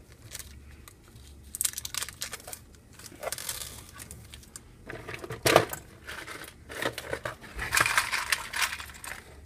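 A small clear plastic parts bag being handled and opened, crinkling, with little metal screws clicking as they are tipped out onto a desk.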